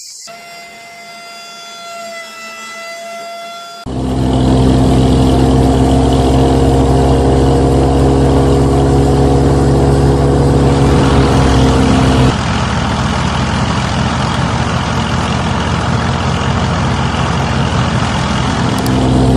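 Small electric motor driving a homemade miniature wheat thresher while wheat ears are fed in. A fainter high whine comes first; about four seconds in a loud steady motor hum starts, and it drops a little in level about twelve seconds in.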